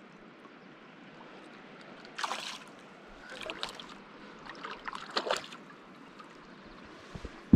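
Hooked wild brown trout splashing at the surface as it is played in on a spinning rod: three short splashes about two, three and a half and five seconds in, over faint lapping water.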